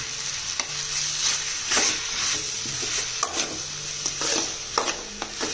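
Chopped chayote, tomato and dried chillies sizzling in oil in a metal kadai, with a steel spatula stirring them and scraping against the pan in irregular strokes over a steady frying hiss.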